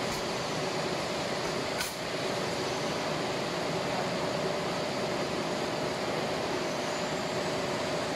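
Steady hum and hiss of running machinery, with a short click about two seconds in.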